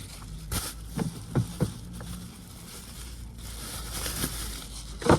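A few light clicks and knocks from handling coil parts and tools in the engine bay, over a steady low rumble of wind on the microphone.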